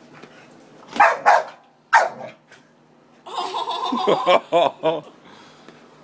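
A dog barking excitedly at a vacuum cleaner: three sharp barks about a second in, then a longer run of rapid pitched barks and yelps from about three to five seconds in.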